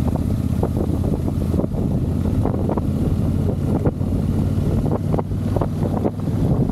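A motorcycle running at a steady pace, its engine a low drone under heavy wind buffeting on the microphone, with frequent short knocks.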